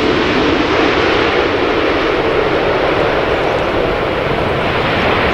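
An Airbus A380's four Rolls-Royce Trent 970 turbofans on landing approach, passing low and close just before touchdown: steady, loud jet-engine noise. Its higher hiss dulls slightly near the end as the airliner moves away.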